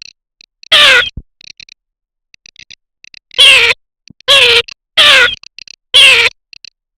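Garganey calling: five short nasal calls, each falling in pitch, with faint rapid dry clicking between them.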